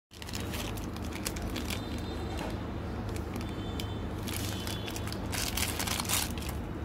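Glossy plastic candy wrapper crinkling as it is handled, then torn and pulled open in crackly bursts, thickest towards the end, over a steady low hum.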